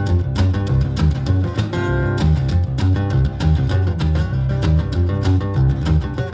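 Instrumental live music: a baritone guitar run through effects plays a rhythmic riff over a deep, repeating bass line with a steady beat.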